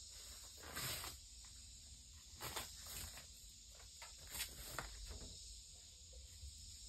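Kraft-faced fiberglass insulation batts rustling and crinkling in several short bursts as they are pulled down from the ceiling, over a faint steady high hiss.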